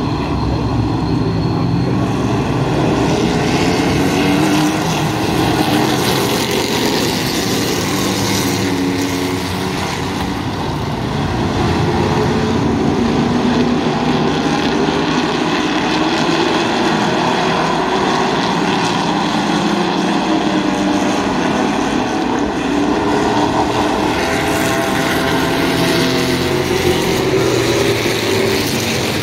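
Several vintage stock cars' V8 and inline-six engines running on the track at the same time, their pitch rising and falling as they drive laps.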